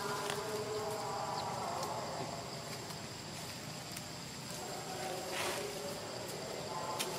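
Steady, high-pitched drone of insects.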